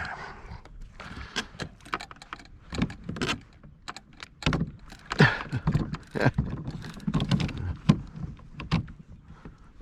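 Irregular clicks, knocks and low thuds of fishing rods, reels and tackle being handled against a plastic kayak hull while fighting hooked bluefish.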